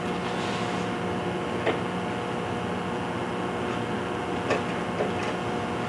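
Steady machine hum with a few held tones, broken by faint clicks about a second and a half in and twice near the end.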